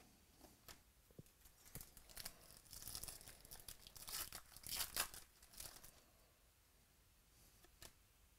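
A 2018 Stadium Club baseball card pack's wrapper being torn open by hand: a quiet run of crinkling and tearing starting about two seconds in, loudest near five seconds. A few light clicks from handled cards come before and after it.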